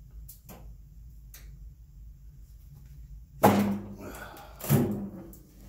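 Two heavy metallic clunks a little over a second apart, each leaving a short ringing hum, from a Brown-Boggs No. 102 hand sheet-metal brake and the 16-gauge mild steel sheet in it being forced through a tough bend. A few light ticks come before them.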